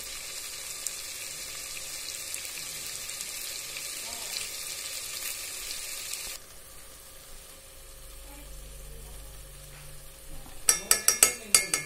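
Saag sizzling in a metal pot, a steady hiss that cuts off suddenly about six seconds in. Near the end a metal spoon taps sharply against the pot about six times, knocking spice powder into it.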